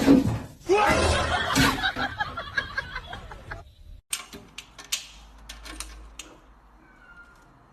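A person's voice laughing, with pitch that bends up and down, stopping abruptly about three and a half seconds in. It is followed by faint scattered clicks and taps.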